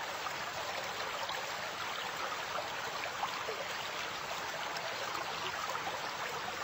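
A rocky stream murmuring: water rushing steadily over stones.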